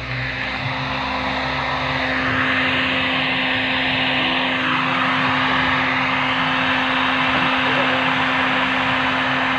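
A steady mechanical running noise with a constant hum, building up over the first two seconds and then holding level.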